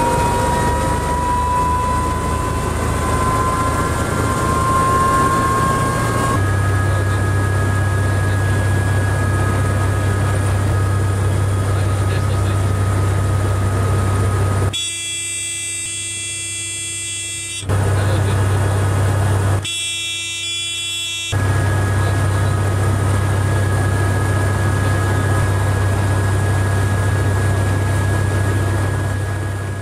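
AS350 helicopter's turboshaft engine and rotor running: a whine rises in pitch over the first six seconds, then settles into a steady low drone with steady high tones. Twice, about halfway through and again a few seconds later, a steady buzzing tone replaces the drone, first for about three seconds, then for about a second and a half.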